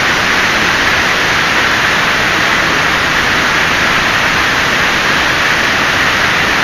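A steady, loud hiss that stays even throughout, with no distinct reel, splash or other event standing out.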